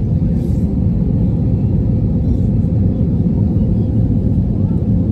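Steady low rumble of an Airbus A321's engines and rushing air, heard inside the passenger cabin during the climb after takeoff.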